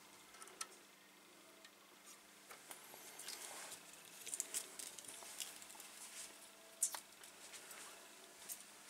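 Faint, irregular light clicks and taps of small objects being handled at a workbench, over a low steady hum.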